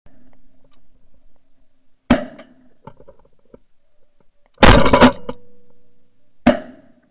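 Shotgun shots from close by: a single shot about two seconds in, two shots in quick succession around the middle, and one more shot near the end.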